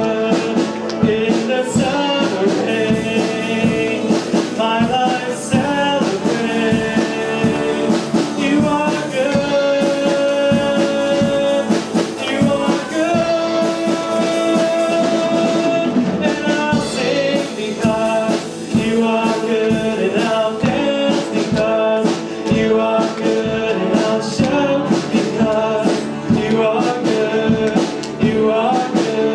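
Worship song played by a band with a steady drum beat and singing.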